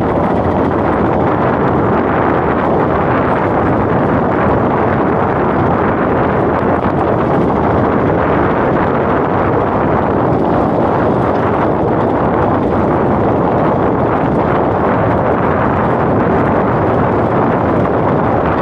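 Steady, loud rumble of wind buffeting the microphone mixed with vehicle and road noise from a vehicle travelling along a rough road.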